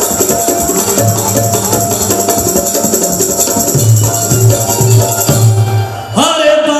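Live stage band music: a fast jingling percussion rhythm with deep drum beats. Near the end the percussion stops and a held melodic line begins.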